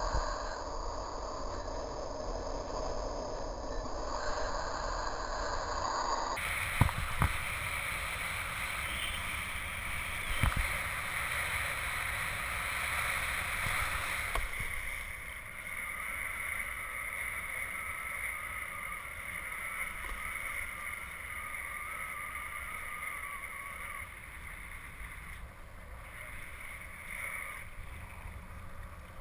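Water rushing and spraying past a kite hydrofoil board, with wind buffeting the action-camera microphone. Short low thumps come about seven seconds in and again near ten seconds.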